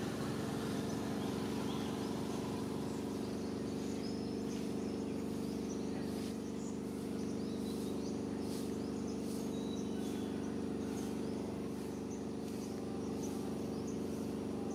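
A steady low motor hum, with short high bird chirps over it.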